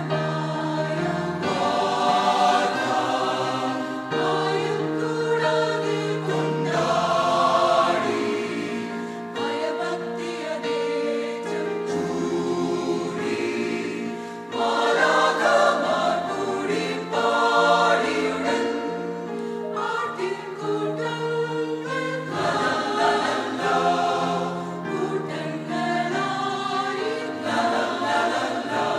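Mixed choir of men's and women's voices singing a Christmas carol in harmony, with electronic keyboard accompaniment; the singing swells louder about halfway through.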